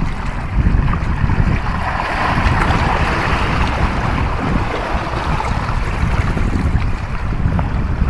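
Wind buffeting the microphone with a gusty low rumble, and sea water washing and hissing over shoreline rocks, swelling from about two seconds in and easing off by about five seconds.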